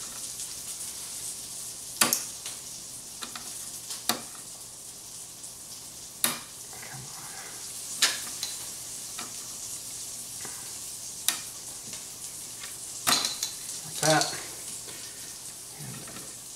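Plastic cable connectors being unclipped and pulled out of a flat-panel TV's main circuit board: about seven sharp clicks and snaps, a second or two apart, over a steady hiss.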